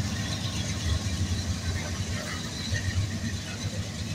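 Freight train passing close by: the diesel engine hum of the trailing locomotive goes past and gives way to the rumble of covered hopper cars rolling on the rails.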